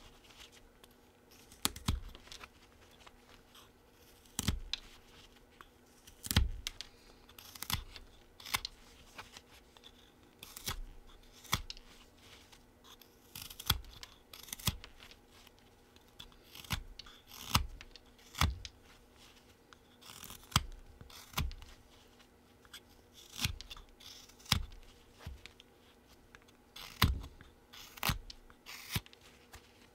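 Short slicing cuts of a Flexcut Whittlin' Jack folding knife paring a small wood block, about one cut a second, as a carved head is rounded off.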